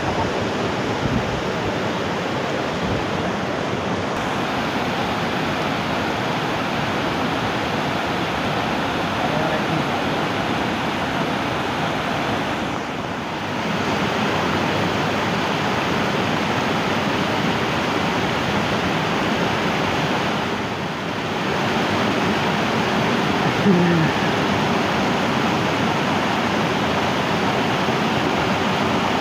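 Steady rushing of river water pouring over a small concrete weir into the pool below.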